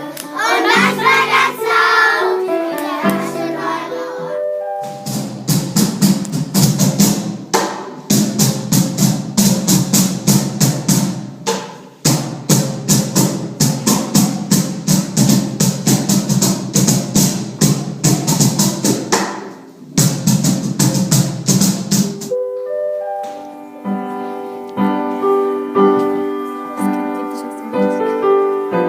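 Music: children singing for the first few seconds, then a long passage of fast, even percussive strokes over a low steady sound, then piano notes in the last several seconds.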